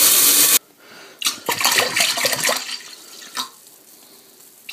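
Kitchen sink sprayer running water into a large stainless steel pot, a steady splashing that cuts off abruptly about half a second in. A few quieter, irregular clicks and knocks follow.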